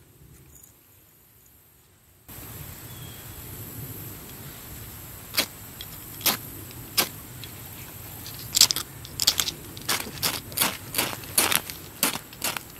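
Ferro rod (fire steel) being struck with a metal striker over a tinder bundle. Sharp, short rasps begin a few seconds in, a few spaced strikes at first, then quicker ones about two a second.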